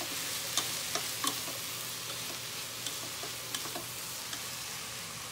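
Broccoli and pasta sizzling in a hot pan as a wooden spatula stirs through them, with a steady hiss and occasional light clicks of the spatula against the pan.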